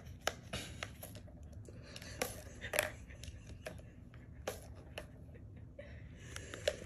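A kitten batting at an orange plastic three-tier ball-track cat toy, giving a run of light, irregular plastic clicks and knocks.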